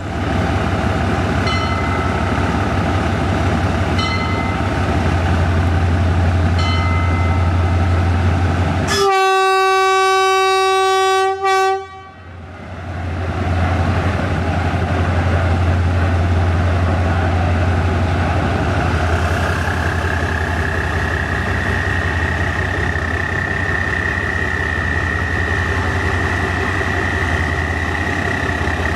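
A diesel-electric locomotive of the State Railway of Thailand runs at low speed into a station, with a steady low engine drone. Near the middle it sounds one loud horn blast of about two and a half seconds. In the second half a high steady whine comes in over the engine.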